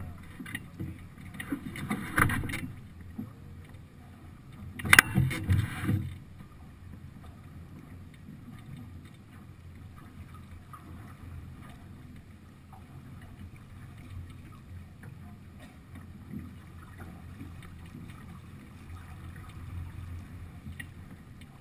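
Wind on the microphone and water rushing along the hull of a sailing yacht under way, a steady low rumble. Two louder bursts stand out, about two seconds and about five seconds in.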